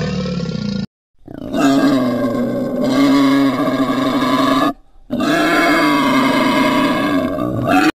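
Two long animal calls, each about three seconds, separated by a brief pause, after a short tail of an earlier call that cuts off just under a second in.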